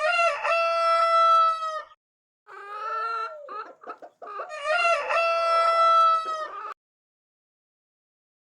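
A rooster crowing twice, each crow a long pitched call of about two seconds, with shorter, broken, lower calls in between.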